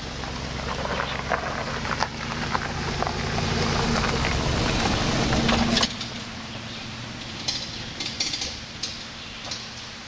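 SUV engine running and tyres crunching on a gravel road as it drives past, growing louder over the first six seconds. Then it cuts suddenly quieter, with only faint engine noise and a few light clicks from the vehicle far down the road.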